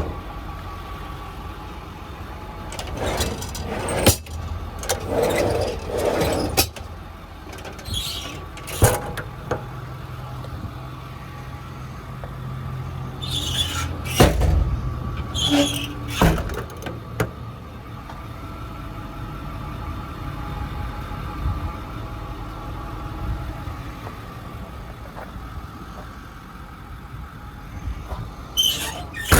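The doors of a Ford F550 service truck being opened and shut: several separate clunks with a few squeaks and latch sounds in between, over a steady low rumble.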